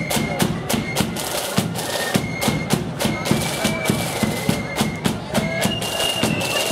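Marching flute band playing: shrill flutes hold a melody over a steady beat of drum strokes.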